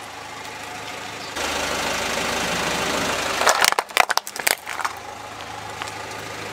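A car idles while its tyre presses down on a plastic toy police car. A cluster of sharp cracks and crackles of the plastic giving way comes about three and a half to four and a half seconds in.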